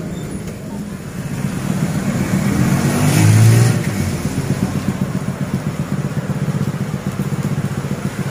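Motorcycle engine idling close by with a steady, rhythmic low putter. About three seconds in, a vehicle engine revs up and passes, rising in pitch; this is the loudest moment.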